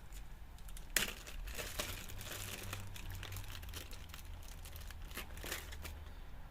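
Parts packaging rustling as small replacement bolts are handled and sorted, with a sharp click about a second in.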